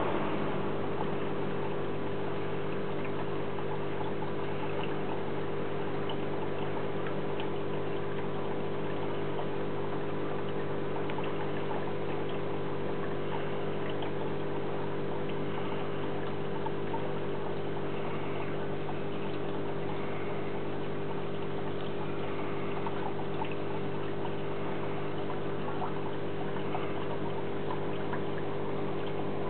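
Aquarium pumps and filtration running: a steady hum with water trickling.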